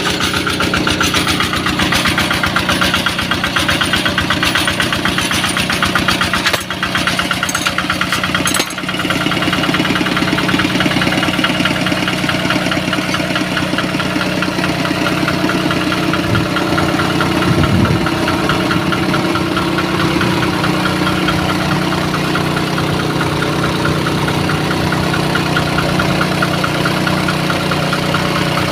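Engine of a well-drilling machine running steadily, dipping briefly twice about a quarter of the way in.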